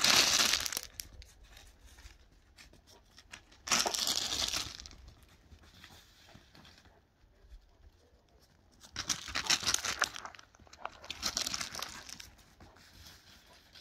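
Footsteps crunching on snow-covered gravel, in four short bursts with quiet between them.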